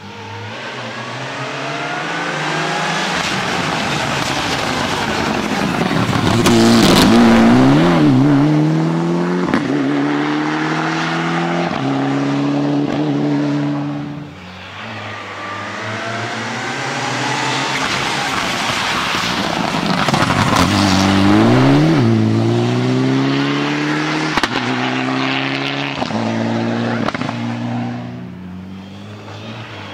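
Two rally cars pass in turn. Each engine runs hard on the approach, drops in pitch as the car brakes and downshifts into the corner, then climbs in steps as it accelerates away through the gears, with a few sharp cracks along the way. The first car is loudest a third of the way in; the second follows after a brief lull and fades near the end.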